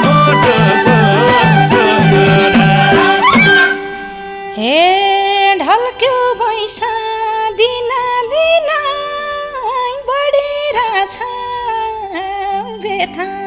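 Instrumental interlude of Nepali dohori folk music. At first a drum beat drives a busy melody. Just under four seconds in, the drums drop out and a melody instrument plays sliding, bending notes over a steady held drone.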